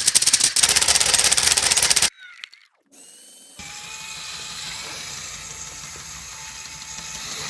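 LEGO Technic V12 engine model running fast: a loud, dense, rapid clatter of plastic pistons and gears that cuts off abruptly about two seconds in. After a brief near-silence, a quieter steady hum with faint tones takes over.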